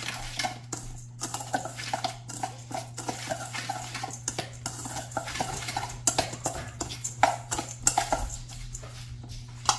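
Spoon stirring crushed crouton crumbs and seasoning in a bowl: irregular scraping and clicking of utensil against dish, over a steady low hum.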